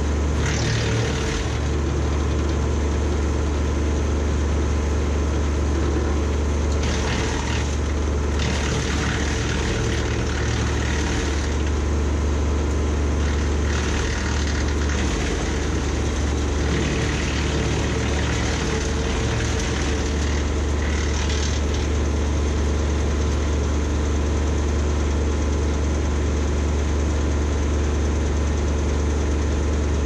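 Tractor-driven BECO 4-inch PTO wood chipper running steadily with a deep hum. Several times in the first twenty seconds or so, a rushing, shredding noise lasts a second or two as leafy branches are pulled in and chipped.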